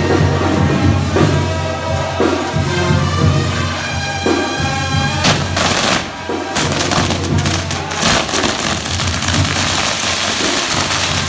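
Music with a steady low bass, then about five seconds in a castillo fireworks tower goes off: a loud hissing rush of sparks with rapid crackling bangs over the music.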